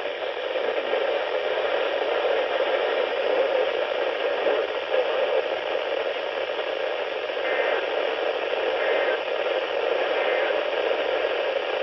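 Weather radio receiver putting out steady static hiss with no broadcast voice: the NOAA Weather Radio transmission has dropped out, leaving only radio noise.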